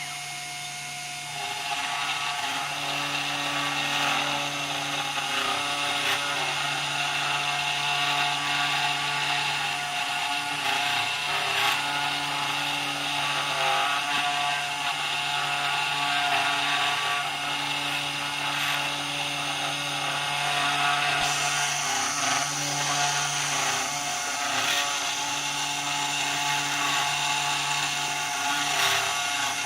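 CNC machine running, its spindle motor humming steadily while the tool cuts into the workpiece; the cutting noise comes in about a second in and stays fairly even.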